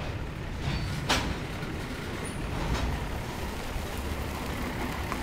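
Diesel switching locomotive's engine running with a steady low rumble, with a sharp knock about a second in.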